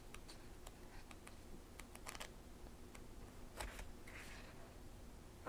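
Pages of a paperback book being leafed through by hand: faint, scattered paper flicks and rustles.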